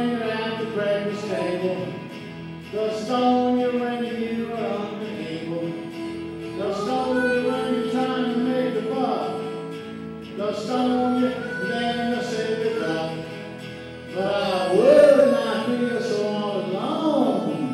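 Live performance on a Stratocaster-style electric guitar played through a small amplifier, with a man singing.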